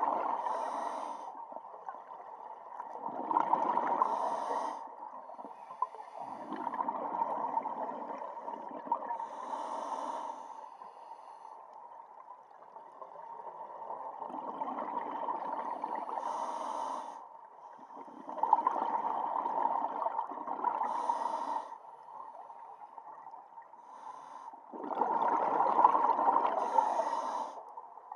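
Scuba diver breathing through a regulator underwater: about six slow breath cycles, each a few seconds of hiss and bubbling with quieter pauses between.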